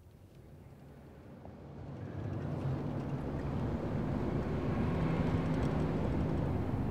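Low, steady vehicle rumble, like a car's road and engine noise while driving; it swells in over the first couple of seconds and then holds.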